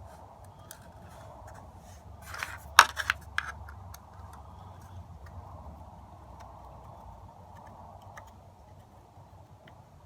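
Light clicks and taps of small screws and a screwdriver being handled while a screw is fitted into a connector on a metal rail, with a short cluster of sharper metallic clicks a little under three seconds in.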